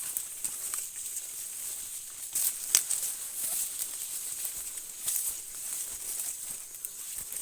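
Rustling and crackling of dry corn leaves and footsteps through a corn field, with a few sharper snaps about two and a half seconds in, over a steady high-pitched drone of night insects.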